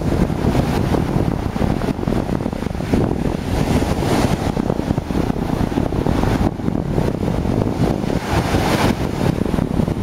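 Strong storm wind buffeting the microphone over heavy surf breaking on the shore; the hiss of the breaking waves swells twice.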